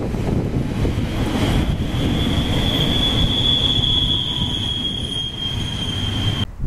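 Freight train passing close, its wheels rumbling loudly on the rails, with a steady high-pitched wheel squeal starting about a second in. The sound cuts off suddenly near the end.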